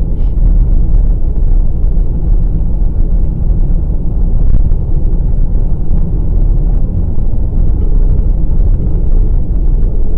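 Steady low rumble of tyre, road and engine noise inside a 2020 Volkswagen Passat Variant 1.6 TDI diesel estate cruising on a wet road.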